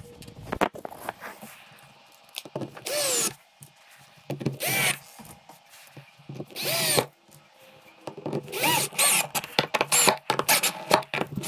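Cordless drill driving screws through a metal table-leg mounting plate into the wooden table top, in several short runs, each a rising whine, the last few coming in quick succession near the end.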